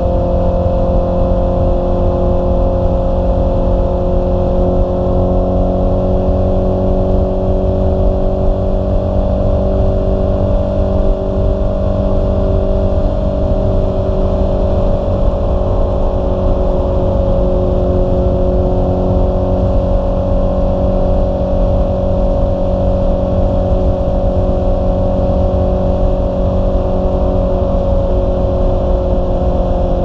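Honda CB650R's 649 cc inline-four engine running at a steady cruise, its pitch rising a little mid-way and easing back, over a heavy low rumble of wind on the microphone.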